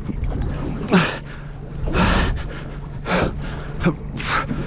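An angler's heavy breathing and gasps of effort, roughly one a second, with a short grunt about a second in, while fighting a hooked kingfish on a heavily bent rod. A steady low hum runs underneath.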